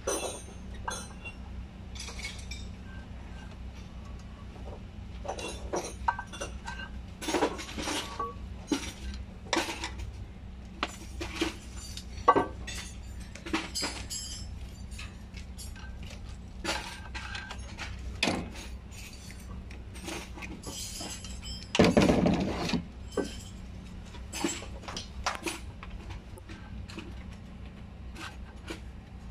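Hand tools and metal parts clinking and knocking at irregular intervals at the flywheel of a MAN TGS truck engine, its gearbox removed for a clutch change. About 22 seconds in comes a louder rough noise about a second long. A steady low hum runs underneath.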